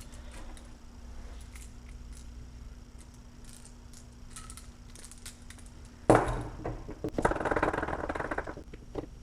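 Metal parts and tools being handled: light clicks, a sharp knock about six seconds in, then a second or so of rapid rasping clatter.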